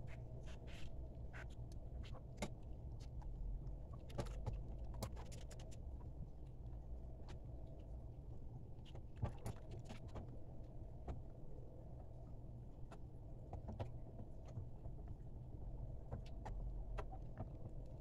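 Wooden spoon stirring grated soap in hot water in a metal pot, with irregular light scrapes and clicks as the spoon knocks the pot, over a steady low rumble.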